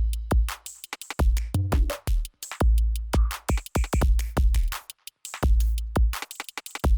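Background electronic music with a heavy drum-machine beat.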